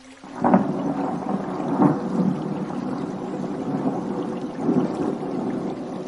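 Thunder: a sudden crack about a third of a second in, then a long rolling rumble that swells again near two seconds and near five seconds.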